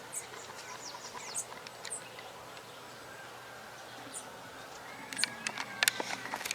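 Opossum calls: faint, short, high squeaks in the first two seconds, then a quick run of sharp clicks near the end.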